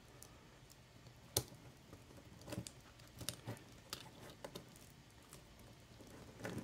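Fingers handling a metal watch bracelet and picking at its hang tag and protective plastic film: faint, scattered small clicks and ticks, the sharpest about a second and a half in.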